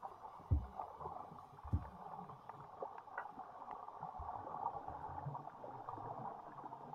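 Faint, muffled underwater ambience picked up by a camera resting on a coral reef floor: a steady hiss with a few faint ticks, and two low thumps, about half a second and just under two seconds in.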